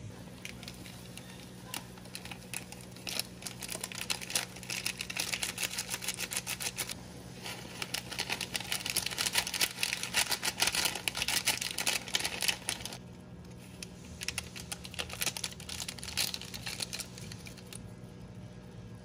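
Typing on a computer keyboard: a rapid clatter of key clicks in runs, with short pauses about 7 and 13 seconds in, over a steady low hum.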